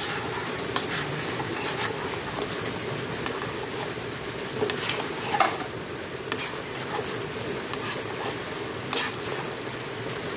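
Metal spoon stirring hot cocoa in a stainless steel saucepan, with scattered light clinks against the pot and one louder clink about five seconds in, over a steady hum.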